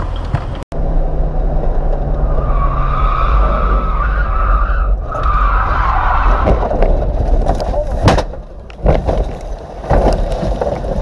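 Dashcam sound of a vehicle running off the road: engine and road rumble with a squeal that lasts a few seconds as it skids. This is followed by a series of hard knocks and bangs as it crashes across rough dirt ground.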